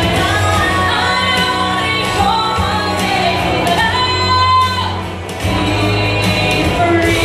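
A woman singing a pop song into a microphone through a PA, over a recorded backing track. Her voice slides between held notes, with a short dip in the music about five seconds in.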